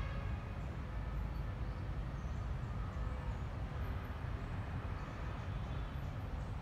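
Steady low rumble of background noise with no distinct event in it.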